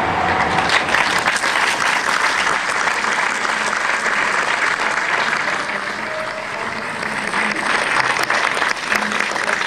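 An audience applauding: many hands clapping together at a steady level.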